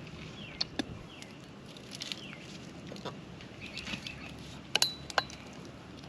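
Faint outdoor quiet with birds giving a few short falling chirps and several sharp clicks and taps, the loudest pair about five seconds in.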